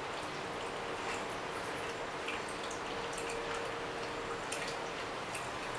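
Steady hiss of room tone with a faint, even hum, broken by a few soft, wet-sounding ticks.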